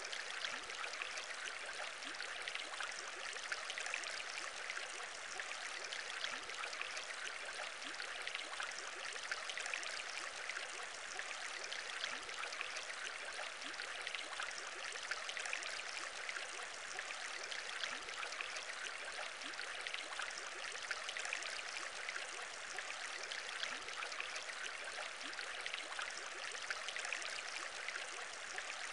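Steady aquarium bubbling: a continuous stream of small bubbles rising and popping, without pauses.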